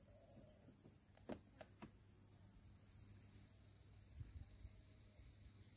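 Insects chirping faintly in a fast, even, high-pitched pulse of about ten beats a second, with a few sharp clicks about a second and a half in.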